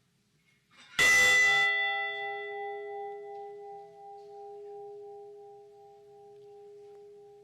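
A single memorial bell struck once about a second in, then ringing out with a long, slowly fading hum: a toll for one of the ship's lost crewmen.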